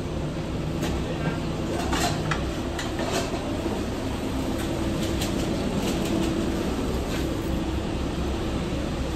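Steady low drone of fast-food kitchen equipment, with scattered light clicks and knocks from handling things on the prep line.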